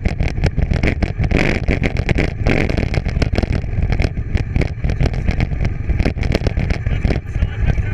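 Wind rumbling on the microphone over the clatter and rapid knocks of a bike rolling over rough ground during a bikejoring run.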